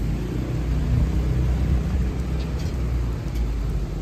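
Gusty wind from an approaching thunderstorm buffeting the phone's microphone: a steady low rumble that swells slightly about a second in.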